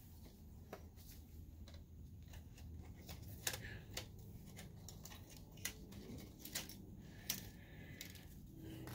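Faint scattered clicks and ticks of small parts being handled inside an opened DLP projector: cable connectors and the metal board shield touched and unplugged by hand and screwdriver, over a low steady hum.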